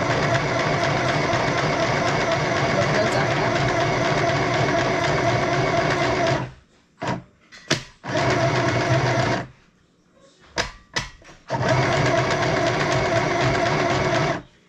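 Compact electric sewing machine stitching in runs: a long steady run of about six seconds, a short run of about a second and a half, then another run of nearly three seconds near the end, with a few sharp clicks in the pauses between runs.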